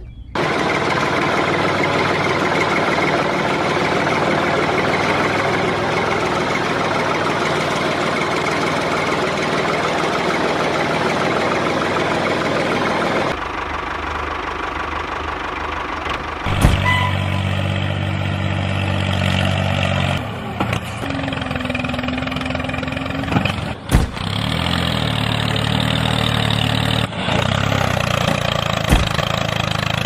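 A small motor-driven DIY toy tractor running, with a dense mechanical whir. A little past halfway it gives way to a lower, steadier engine-like drone that cuts off abruptly several times.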